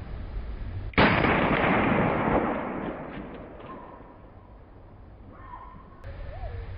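A single shot from a 2-inch-barrel .38 Special revolver firing a standard .38 Special round, about a second in, with a long tail that fades over a couple of seconds.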